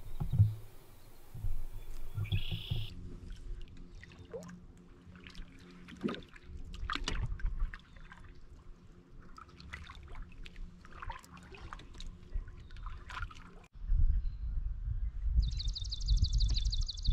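Canoe paddle strokes: the blade dipping and water dripping and splashing, with a few knocks on the hull. A short buzzy bird call comes near the start, and a fast, high bird trill near the end over a low rumble.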